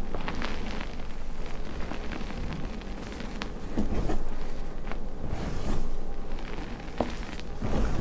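Hands scooping, squeezing and pressing loose powdered gym chalk with crumbled chunks: soft crackling and rustling of the powder, with several louder crunches as handfuls are pressed in, about four seconds in, near six seconds and near the end.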